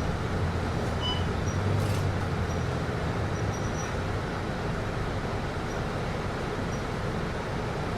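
Cabin noise inside a city bus: the steady hum and whoosh of the air conditioning over the engine's low drone, with a few faint short high ticks or rattles.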